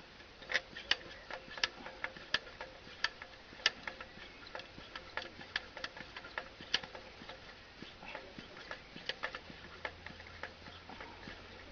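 Mini hand pump on the filler cap of an Optimus 199 stove being worked to pressurize the kerosene fuel tank, clicking with its strokes. The clicks are sharp and come about one or two a second at first, then lighter and more frequent.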